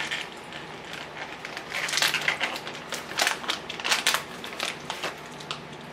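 Crinkling and crackling of a small plastic snack wrapper being handled and opened by hand, in a rapid run of crackles that is busiest in the middle seconds.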